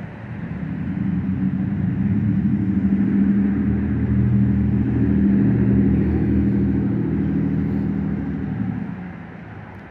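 A motor vehicle passing: a low engine hum that swells over a couple of seconds, holds, then fades away near the end.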